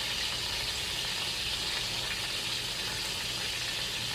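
Chicken pieces deep-frying in hot oil in a skillet, a steady crackling sizzle.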